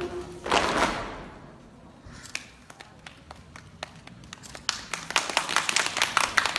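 Music ends with a last loud note about half a second in that dies away. Then an audience starts clapping, a few scattered claps at first, building into steady applause toward the end.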